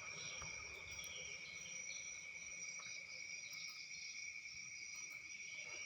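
Faint, steady high-pitched background drone at two pitches, unbroken, over a quiet low room noise.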